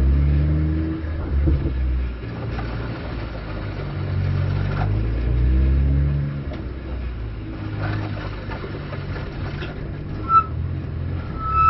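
BMW M240i Racing Cup's turbocharged straight-six heard from inside the cockpit, rising in pitch twice under acceleration and easing off between. A short high beep about ten seconds in.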